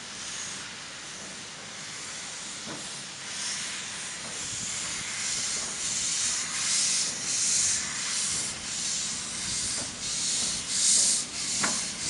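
A narrow-gauge steam locomotive hissing steam, then setting off with a train: its exhaust beats grow louder and more regular, about two a second. There is a sharp knock near the end.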